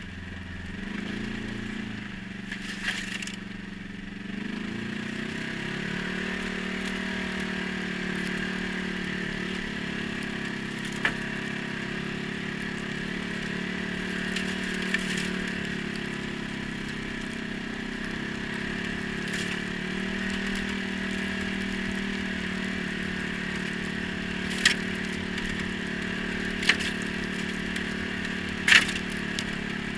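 ATV engine running under way, revving up twice in the first few seconds and then holding a steady pitch. A few sharp knocks or clatters break through, mostly near the end.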